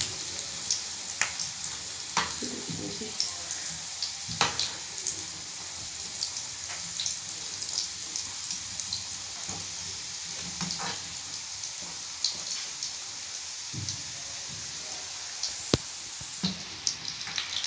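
Cheese vegetable rolls deep-frying in hot oil in a pan, a steady sizzle with scattered small pops. A few sharp knocks come from a metal spatula against the pan as the rolls are turned.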